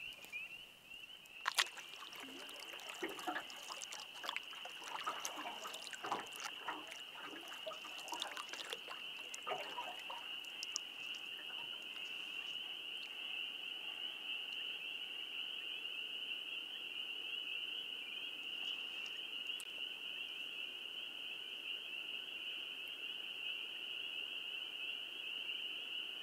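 A loud chorus of spring peepers, a dense steady peeping from many frogs at once. For roughly the first ten seconds, water drips and splashes from canoe paddle strokes, with a sharp knock about a second and a half in.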